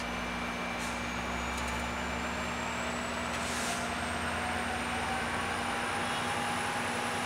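Amtrak California double-deck passenger train rolling along the platform: a steady rumble with a steady low hum and a faint whine that rises slowly in pitch as the train picks up speed.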